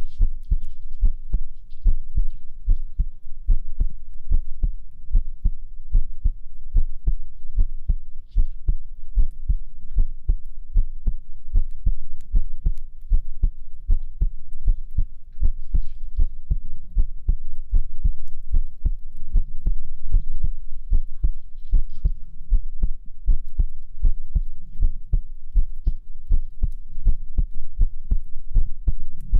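A human heartbeat, heard close and amplified: a steady, even run of deep low thumps.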